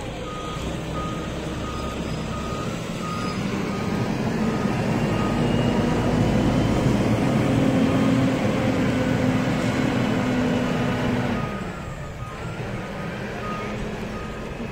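Large boat-stacker forklift carrying a motorboat on its forks: its engine runs steadily, louder from about four seconds in while it drives and easing off near the end, with its alarm beeping about twice a second.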